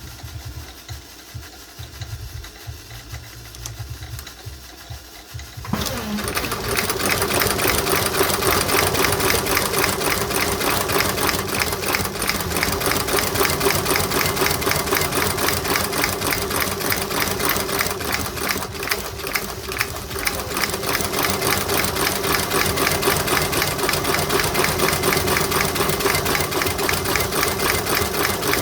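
Shoe-repair welt stitching machine sewing a new leather sole to a Goodyear welt. After about six seconds of a low hum, the stitching starts suddenly and runs on as a loud, fast, even rhythm of needle strokes.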